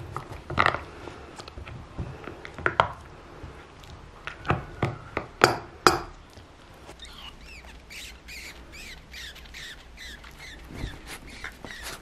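Small dog chewing a hard rubber squeaky ball: sharp crunching, clicking bites in the first half. Then, from about seven seconds in, a quick run of short high squeaks as the toy is squeezed in her jaws.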